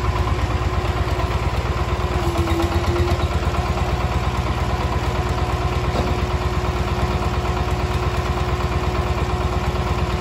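Small diesel engine idling steadily with an even, rapid chug.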